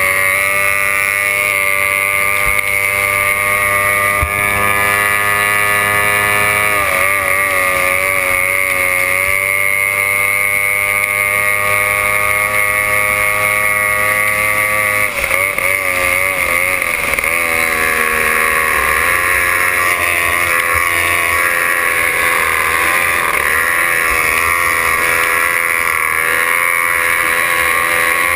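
C class racing hydroplane's two-stroke outboard engine running flat out, heard from on board the boat. Its high-pitched whine holds steady at first, then its pitch wavers up and down repeatedly, more often in the second half.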